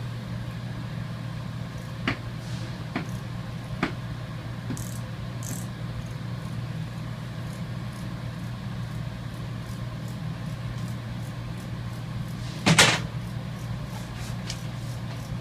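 Steady low hum of industrial furnace equipment running, with a few light clicks early on and one loud short clunk about 13 seconds in.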